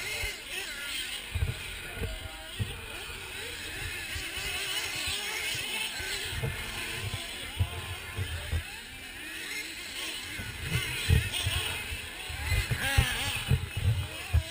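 Radio-controlled off-road cars racing around a dirt track, their motors whining and shifting in pitch as they speed up and slow down. Irregular low thumps of wind buffet the microphone throughout, most of all near the end.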